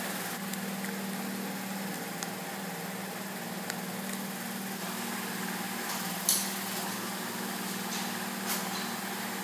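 Steady low mechanical hum, with a few faint clicks and a short rustle about six seconds in.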